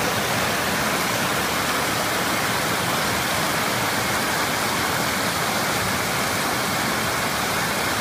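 Rushing rocky stream, white water cascading over boulders in a steady hiss.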